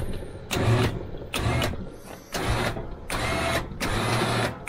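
Electric plow winch on a Can-Am Defender HD8 running in about six short bursts as its new switch is pressed. Each press brings the winch motor in at once: the switch is no longer intermittent.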